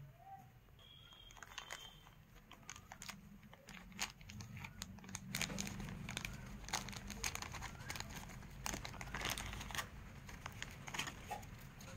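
Clear plastic bag crinkling and crackling in the hands as a small digital DC voltmeter is unwrapped from it: irregular crackles, busiest from about four seconds in.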